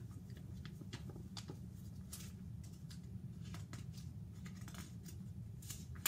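Paper pages of a picture book rustling and flapping in scattered soft clicks as the book is shaken, then handled to turn a page, over a steady low hum.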